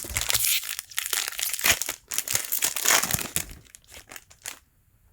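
Foil wrapper of a Pokémon trading card booster pack crinkling and tearing as it is opened by hand, stopping about four and a half seconds in.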